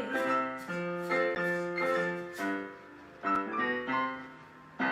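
Piano playing the instrumental close of a children's song, with no singing: a run of struck notes and chords that ring and fade, thinning out about three seconds in, then one last chord near the end.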